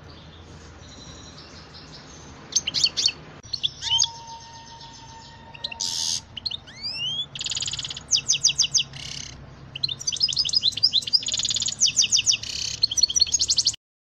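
A finch singing in bursts of fast twittering trills and rising chirps from a couple of seconds in, over a low steady hum. The sound cuts off suddenly just before the end.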